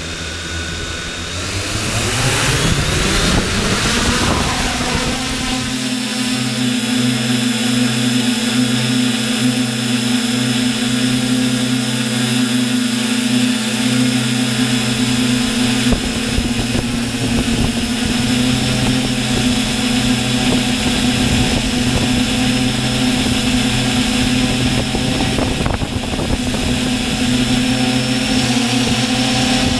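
Multirotor drone's electric motors and propellers, recorded from on board. They spin up with a rising whine over the first four seconds or so, then hold a steady pitched hum in flight, shifting a little in pitch as the throttle changes.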